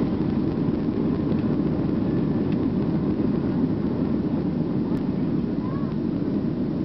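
Steady rumble of jet engines and rolling noise inside a Boeing 737's cabin, heard from a window seat over the wing as the plane moves along the runway.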